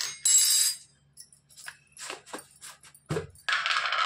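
Kitchen handling noise while preparing chicken: two short bursts of metallic jingling and clatter, one just after the start and one near the end, with a few knocks and a dull thump in between.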